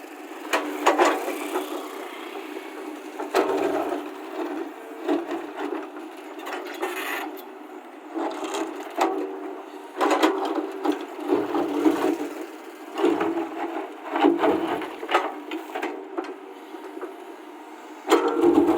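Radio-controlled model construction machines working: a steady motor hum with irregular knocks, clatters and scrapes of parts and material.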